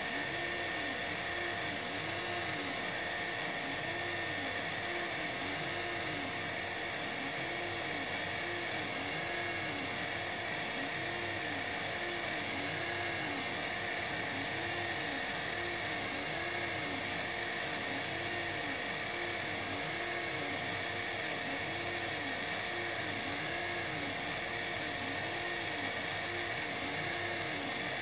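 FDM 3D printer printing a round part: its stepper motors whine in a pitch that rises and falls roughly once a second as the nozzle traces each circular layer, over a steady high whine.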